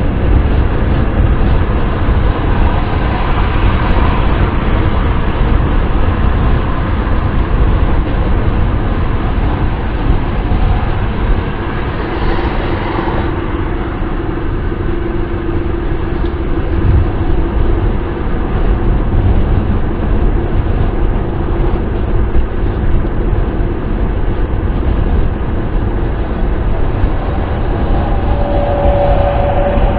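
Steady wind and road noise from a car driving along, an even deep rumble with no changes in pace.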